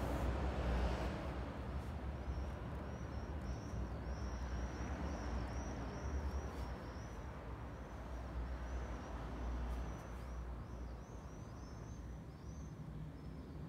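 Steady low rumble of distant traffic, swelling briefly about a second in, with birds giving short high chirps several times a second throughout.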